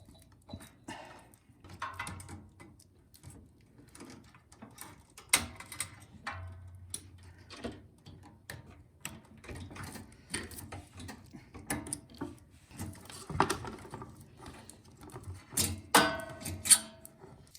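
Irregular clicks, clinks and knocks of hand tools and small metal parts, loudest about five seconds in and near the end, as a snowblower carburetor is taken off and cleaned.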